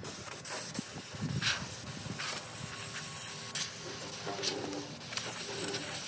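Dry scratching and rubbing of a hand-held abrasive or scraper on the edge of a round wooden tabletop, as irregular hand strokes.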